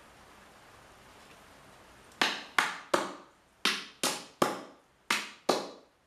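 Claw hammer driving stainless steel nails into a wooden board: eight sharp blows in three quick runs of three, three and two, each with a short ring.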